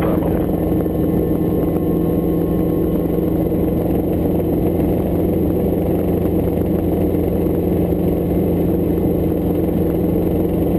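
Hughes light helicopter in flight: the steady drone of its piston engine and rotor, unchanging in pitch and loudness.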